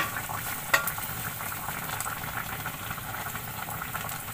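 Minced garlic sautéing in hot cooking oil in a pan: a steady frying sizzle, with a couple of sharp ticks in the first second.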